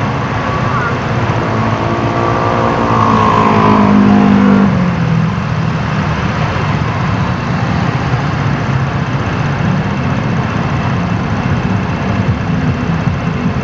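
A SYM Jet SR scooter's single-cylinder engine idling at a standstill. About two seconds in, an engine revs up with a rising pitch for a couple of seconds, the loudest part, then drops off sharply before idling continues.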